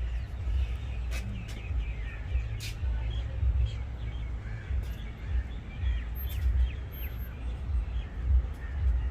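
Scattered bird calls over a low, uneven rumble.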